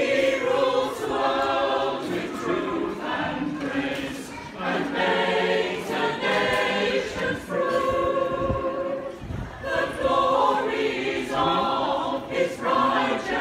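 A choir singing a carol a cappella, in held phrases with short breaks for breath between them.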